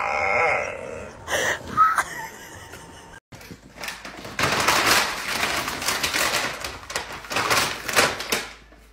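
A dog makes a drawn-out, wavering vocal sound in the first second, with a couple of shorter ones after it. After a sudden break, a clear plastic bag crinkles and rustles loudly as a bulldog puppy bites and drags it.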